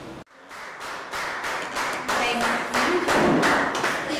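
A small group of people clapping, with a few brief voices over it. The sound drops out for a moment just after the start, then the clapping comes back and grows louder.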